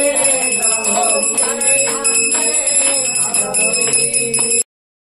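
A puja bell rings continuously, its steady high tones held throughout, while voices sing the aarti hymn. The whole sound cuts off abruptly near the end.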